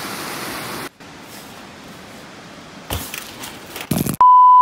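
A steady hiss that cuts off abruptly about a second in, a few knocks near the end, then a loud, steady, single-pitched electronic beep lasting about half a second that stops dead into silence.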